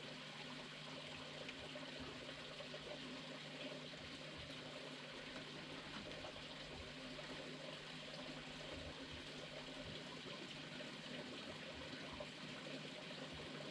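Faint, steady hiss with a low, steady hum underneath. There are no distinct calls, knocks or steps.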